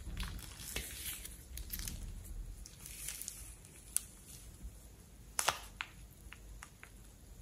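Thick slime being squeezed out of a rubber balloon by hand: wet squelching with irregular crackles and clicks, the loudest crackle about five and a half seconds in.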